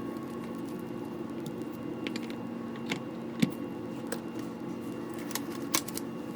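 Steady machinery hum with a few light clicks and taps over it, the sharpest about three and a half seconds in.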